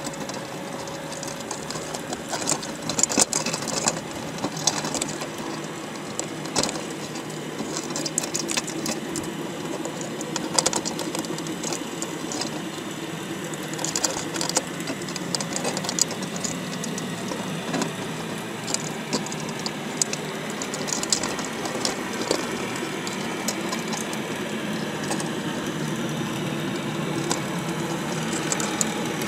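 A motor running steadily, with frequent sharp clicks and clattering knocks over it.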